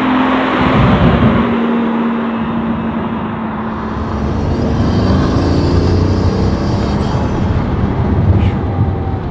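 Pagani Huayra's twin-turbo V12 running as the car drives past, loudest about a second in. The engine note then rises in pitch as the car accelerates away.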